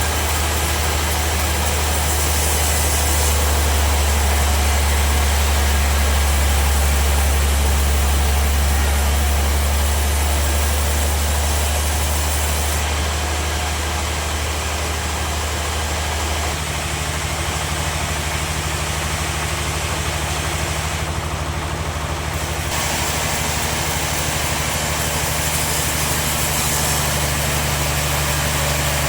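Sawmill machinery running steadily with a deep, constant hum; the low note drops in strength and shifts slightly higher about halfway through.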